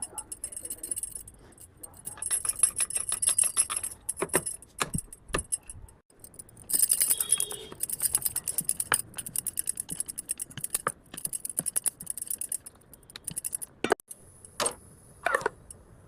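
Metal kitchen utensils clinking and rattling rapidly in two long spells, with a few separate sharp knocks in between and near the end.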